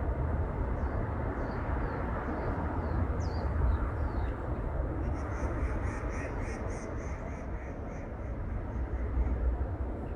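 Birds chirping: scattered short high chirps and a few quick falling notes, then from about halfway a rapid run of repeated high calls lasting about four seconds, over a steady low background rumble.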